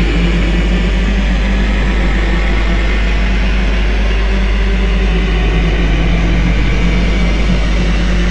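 Steady dark ambient drone soundtrack with a deep low rumble and held tones, no beat.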